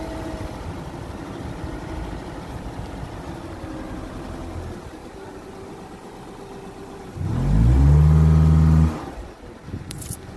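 Subaru Impreza's flat-four boxer engine running with a low, uneven rumble. About seven seconds in it revs up loudly, its pitch rising, for about two seconds before the revs drop away.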